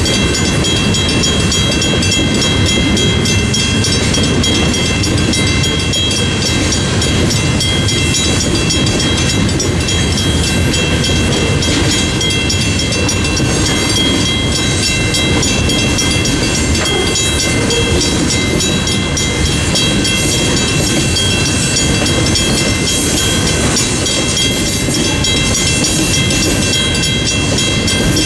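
A train rolling past with a steady, loud rumble of wheels on rail, with a few steady high tones ringing over it.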